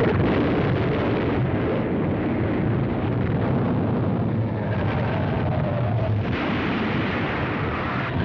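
Cartoon earthquake sound effect: a heavy, continuous rumble that starts suddenly, like a long explosion, with the ground shaking under the city.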